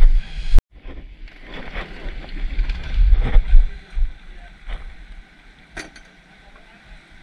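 Wind buffeting the microphone in uneven gusts as a low rumble, strongest at the start and again around the middle, easing off in the second half, with faint background voices and a few light clicks.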